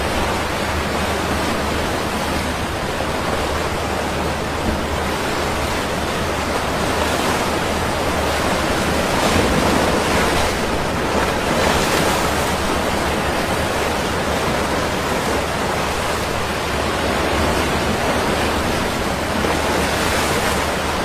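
Sea waves washing onto the shore in a steady rush of surf, swelling louder about ten seconds in.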